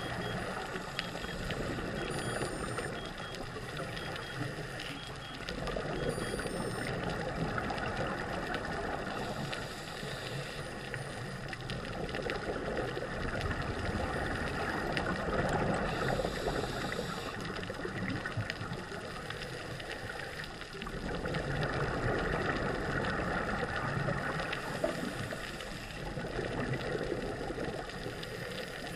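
Scuba diver breathing through a regulator underwater: slow, regular cycles of a hissing inhale followed by a burst of bubbling exhale, four or so breaths in all.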